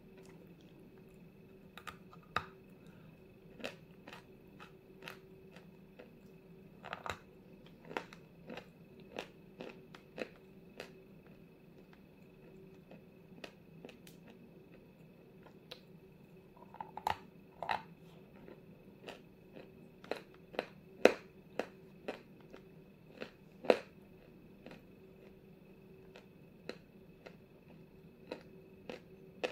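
Close-up crunching and chewing of a lump of soft white 'Zefirka Vasilpolye' eating chalk, as irregular sharp crunches, the loudest about two-thirds of the way through. A faint steady hum runs underneath.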